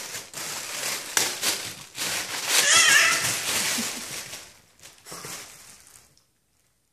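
Foil balloons crinkling and rustling as a French bulldog chews and tugs at them, with a short high, wavering squeal about three seconds in, where the sound is loudest. The noise dies away in the last second or so.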